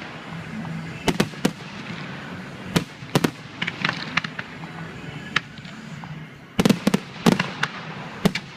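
Fireworks bursting overhead: irregular sharp bangs, some single and some in quick runs, with a dense cluster of bangs about two-thirds of the way through.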